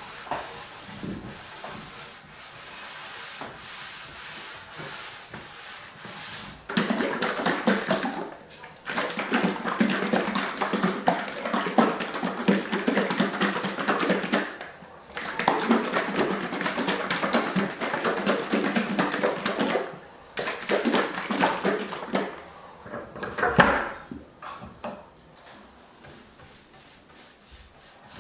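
Hand sanding of a wooden tabletop: loud, rough back-and-forth rubbing strokes of sandpaper on wood, in long stretches with short pauses and fainter strokes at the start.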